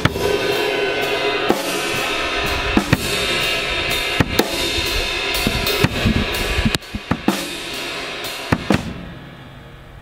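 Acoustic drum kit played live: snare, bass drum and cymbals hit in a busy rhythm over a constant cymbal wash. After about seven seconds the playing thins to scattered hits and dies away near the end.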